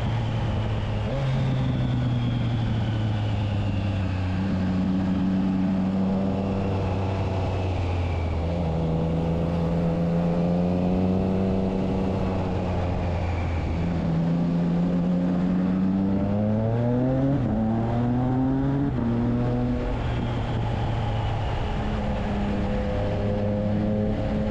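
Triumph Trident 660's three-cylinder engine running through a Spark aftermarket exhaust fitted with its dB killer, the revs holding, easing off and picking up again. About two-thirds of the way through come three short rising sweeps in quick succession, like pulls through the gears.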